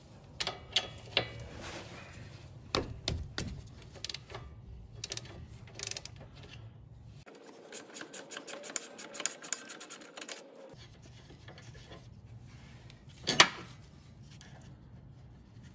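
Socket ratchet clicking rapidly as a 15 mm nut is run off a car's front sway bar link stud, among scattered clinks and knocks of tools on the metal strut. One sharp, louder clank near the end.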